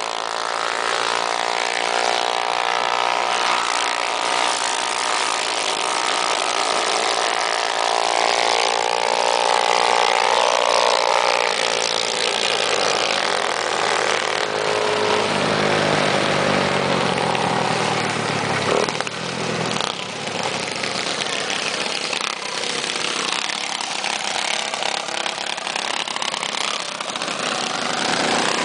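Small petrol engines of mini bikes running and revving, their pitch rising and falling as the throttle opens and closes, with one long climbing rev about two-thirds of the way through.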